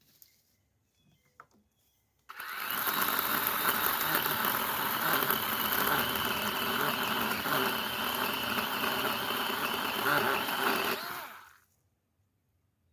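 Power saw cutting a piece of wood into chunks: its motor starts abruptly a couple of seconds in, runs steadily under load for about nine seconds, then winds down and stops.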